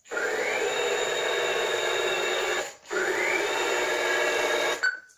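JJRC R1 Defenders infrared-controlled toy robot running: two buzzing whirrs of about two and a half seconds each, each opening with a short rising whine, the second cut off sharply near the end.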